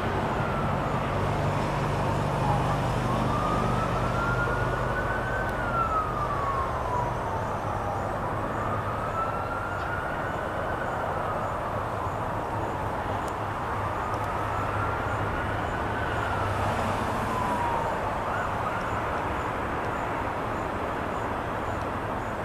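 Emergency vehicle siren wailing in slow rise-and-fall sweeps, about four cycles of roughly five seconds each, over a steady low rumble.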